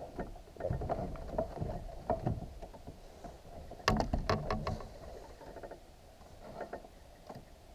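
Knocks and rattles against a small fishing boat as a hooked bass is brought alongside and netted, with a quick run of sharp knocks about four seconds in.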